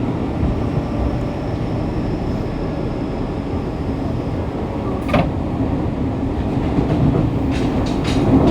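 Fukuoka City Subway 2000 series train running between stations, heard from the floor of the car: a steady rumble of wheels and running gear, with one sharp click about five seconds in and several more clicks near the end.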